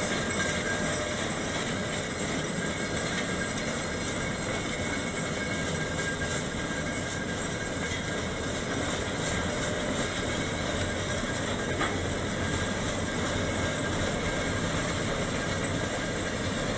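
Mount Washington Cog Railway coal-fired steam locomotive No. 9 climbing a trestle on the cog rack while pushing a passenger coach: a steady mix of working steam and running-gear noise, growing slightly fainter as it moves off.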